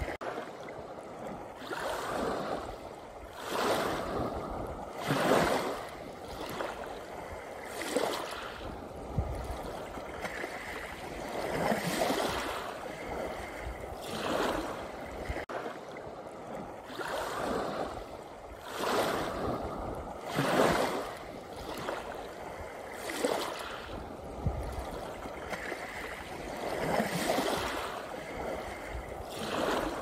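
Small waves breaking and washing up a pebble beach, a rushing surge every couple of seconds, uneven in strength.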